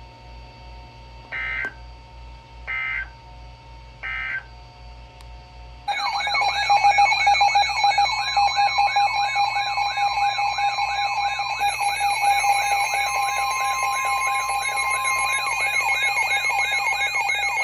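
Emergency Alert System signal on NOAA Weather Radio. First come three short data bursts of the digital SAME header, announcing an alert. About six seconds in, a loud electronic warning alarm starts and keeps going: a rapidly warbling tone over steady tones.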